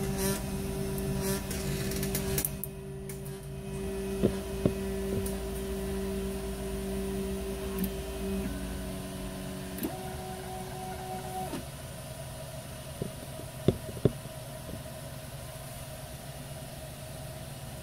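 Qidi X-One 2 3D printer's stepper motors whining steadily as the bed and print head move. The pitch shifts a few times before the motors stop about twelve seconds in. A steady hiss runs underneath, with a couple of sharp clicks about four seconds in and again near fourteen seconds.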